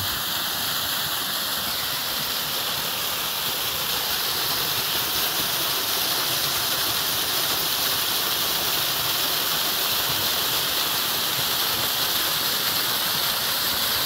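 Small forest waterfall cascading down a rock chute: a steady rushing hiss of falling water.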